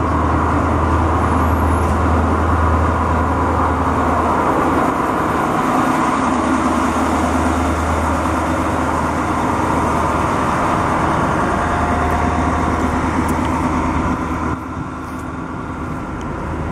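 DR1A diesel multiple unit running along the platform: a steady low diesel engine hum under rumbling wheel and rail noise. The sound becomes quieter near the end.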